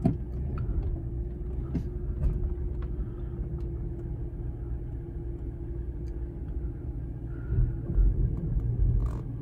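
A rebuilt police car's engine running at idle: a steady low rumble with a held hum, swelling briefly near the end.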